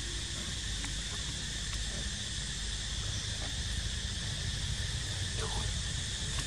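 Steady, high-pitched insect chorus buzzing on one unchanging pitch, over a low rumble. A few faint, short chirps about five seconds in.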